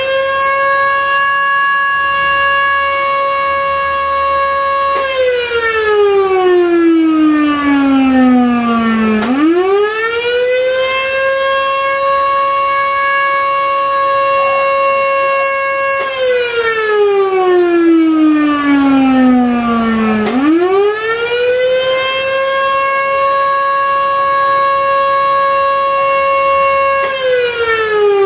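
Fire company's alarm siren sounding for a paged siren test. It winds up to one steady high pitch, holds it for about five seconds, then winds slowly down. The cycle repeats about every eleven seconds, three times.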